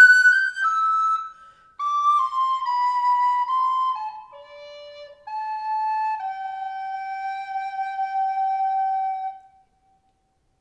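Solo wooden recorder playing a Christmas-carol melody, one clear note at a time, with a short breath pause about a second and a half in. The phrase closes on a long held low note that stops near the end.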